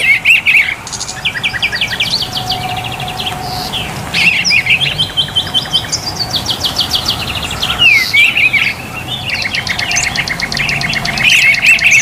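Songbird song: fast trills of rapidly repeated high chirps and a few quick downward-slurred whistles, phrase after phrase with brief gaps.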